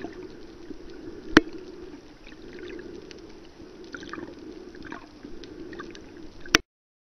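Muffled underwater noise with a steady low hum and a few faint descending chirps. Two sharp clicks stand out, about a second in and near the end.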